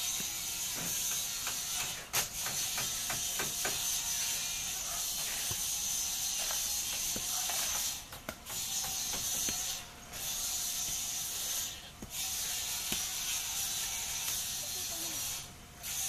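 A steady high-pitched hiss that cuts out briefly about four times, with a run of sharp clicks and snaps a couple of seconds in as someone climbs up into a small fruit tree.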